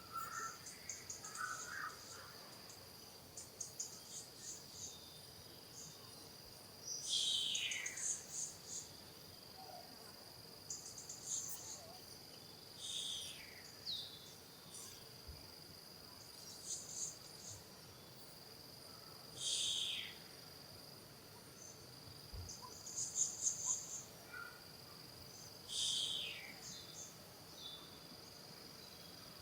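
Steady high-pitched insect drone, overlaid with short high chirping calls and, about every six seconds, a louder call that slides down in pitch.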